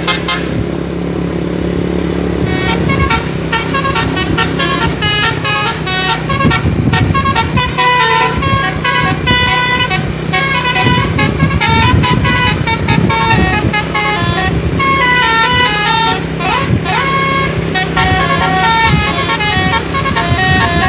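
Bus telolet horn, a multi-tone musical air horn, playing a rapid tune of short stepped notes over a steady low hum. One note slides down and back up about three-quarters of the way through.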